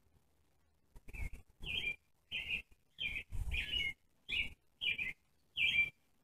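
A small animal giving eight short, high-pitched calls in a steady series, starting about a second in and ending near the end.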